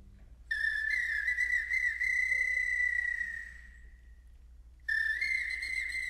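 Small hand-held whistle played solo in a birdsong-like cadenza imitating a skylark: a high held tone with quick warbling trills, in two phrases, the first starting about half a second in and fading near the fourth second, the second starting about five seconds in.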